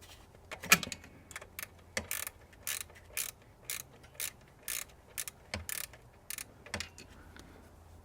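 Wrench loosening the 13 mm nut on the alternator's battery-terminal post: a run of short, sharp metallic clicks, roughly two a second.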